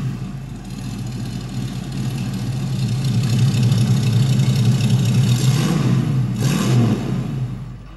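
Big-block V8 of a 1959 Chevrolet Corvette C1 running with a deep, steady exhaust note. It is revved once near the end, then cuts off.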